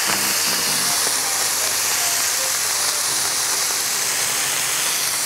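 Thin ribeye steaks and fried eggs sizzling on a hot flat-top griddle: a steady, even hiss. Faint background music plays underneath.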